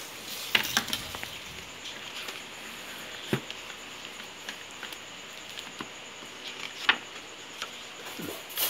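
Light scattered clicks and taps of a plastic ruler against a book and tabletop while a picture-book page is turned, the sharpest tap a little over three seconds in and another just before the end.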